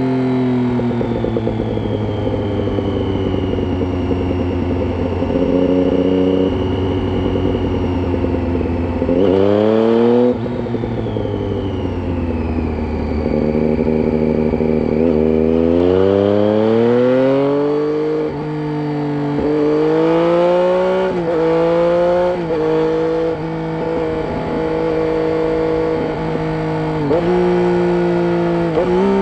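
2007 Triumph Street Triple 675's 675 cc inline three-cylinder engine, breathing through a Roads Italia aftermarket exhaust with its dB killer fitted, pulling under load. The revs climb sharply about nine seconds in and again about sixteen seconds in. After that the engine note rises and drops in a run of short steps as the rider works through the gears.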